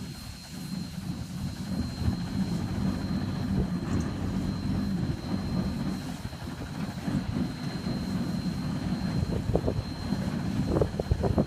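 Steam-powered railroad work machinery running: a steady low rumble, with a few short knocks near the end.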